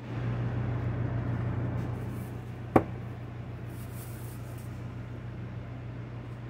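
Steady low hum of kitchen room tone, with one sharp knock a little under three seconds in, as a glass flour jar is handled over a marble board, and light handling rustle afterwards.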